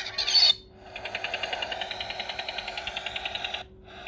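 Talking-pen sound effect of a trawler's net hauler winding in the net: a steady mechanical rattle of rapid, even clicks, about ten a second, lasting about two and a half seconds and then cutting off. The first half second holds the tail of squawking seagull calls.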